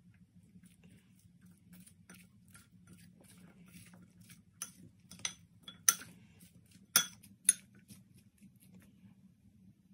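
Metal spoon stirring chopped fruit in a glass bowl, tapping and clinking against the glass, with a few sharp loud clinks past the middle, over a faint low hum.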